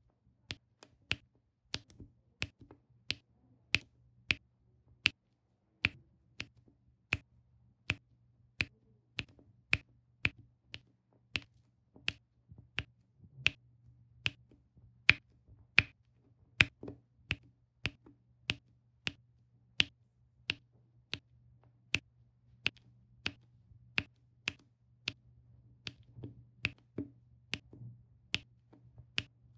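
Diamond painting pen pressing round resin drills onto the adhesive canvas one at a time, each drill setting with a sharp click, about three clicks every two seconds in an even rhythm.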